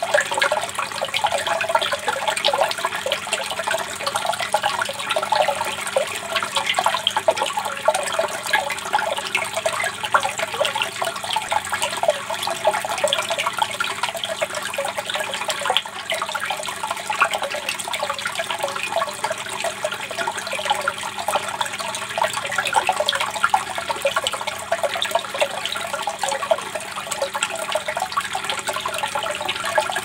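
Water pouring steadily from a pipe and splashing into a pool, a continuous gurgling and splashing.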